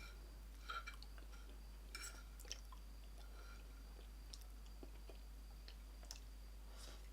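A person chewing a mouthful of homemade apple pie, faint, with scattered small clicks and smacks of the mouth.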